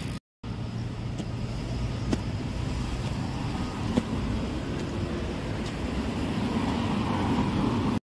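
Steady road traffic with a low engine rumble, cutting out for a moment just after the start and growing louder toward the end.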